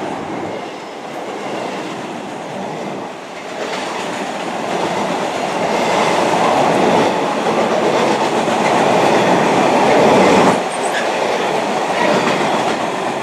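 Intermodal freight wagons rolling through behind a Class 66 diesel locomotive, with a steady rumble and wheels clattering over the rail joints. The noise swells and then drops off sharply near the end.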